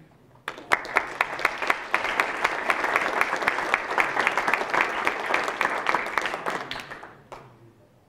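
Audience applauding: many hands clapping, starting about half a second in and dying away about seven seconds in, with one last clap near the end.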